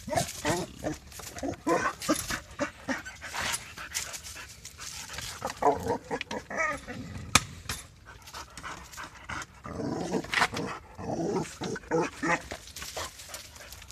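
A dog whining in short bouts that rise and fall in pitch, between sniffing and rustling, while it paws at the fence, worked up over a cat hiding beyond it.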